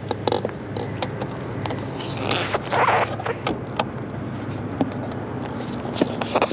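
Hand tool worked against the metal underside and rail of a camper slide-out: irregular clicks and knocks, with a short scraping rustle about two to three seconds in.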